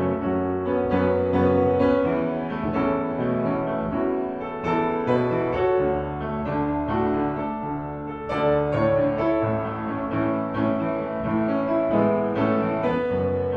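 Piano music with held, overlapping notes.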